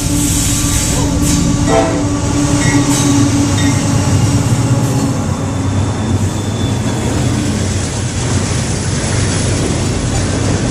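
A CSX GE AC6000CW diesel locomotive's K5LA air horn sounding a long held chord that ends about halfway through, over the loud rumble of the locomotives and autorack freight cars rolling past with wheels clacking on the rails.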